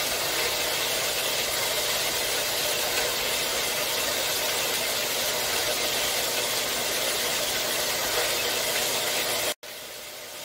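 4x6 horizontal metal-cutting bandsaw running steadily, its 18-teeth-per-inch blade sawing through a bundle of 11-gauge square steel tubing. Near the end the sound cuts off abruptly, leaving a much fainter steady hum.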